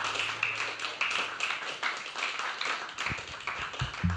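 Small audience applauding, a dense patter of hand claps, with a few low thuds near the end.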